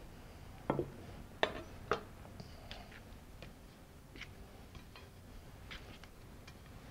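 Raw lamb chops being laid into a glass baking dish of marinade: a few soft taps and knocks in the first two seconds, then scattered faint ticks.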